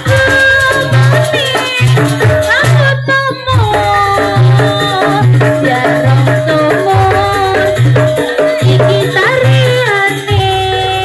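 Loud live jaranan music: a pulsing low drum beat and rattling percussion under a held melody line that slides between notes.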